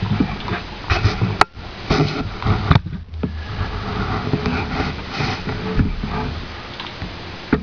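Rustling and handling noise of hands and a small tool working at the edge of a laptop LCD panel and its plastic lid, with scattered clicks; one sharp click about a second and a half in and a smaller one near three seconds.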